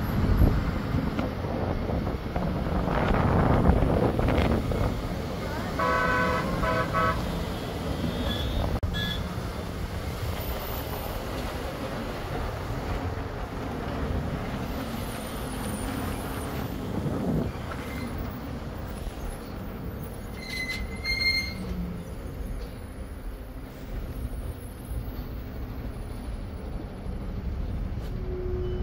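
Steady road and engine noise from a truck driving on the highway. A vehicle horn sounds in a few short toots about six seconds in, with another brief pitched toot around twenty seconds.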